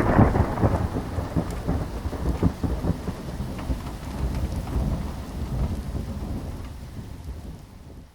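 Thunderstorm sound effect: a loud thunderclap at the start rolling into rumbling thunder over steady rain, fading out near the end.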